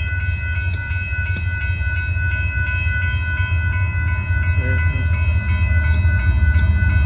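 Grade-crossing bell ringing steadily over the low rumble of an approaching Union Pacific freight train's diesel locomotives; the rumble grows louder near the end as the train nears.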